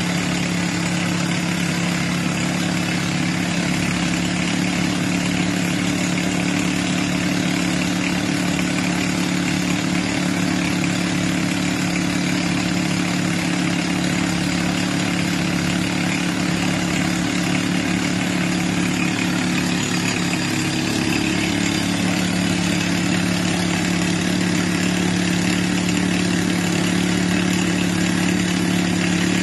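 Truck-mounted water well drilling rig running steadily while drilling: diesel engine and air compressor running, with a steady hiss of air blowing dust out of the borehole. The engine pitch shifts slightly about two-thirds of the way in.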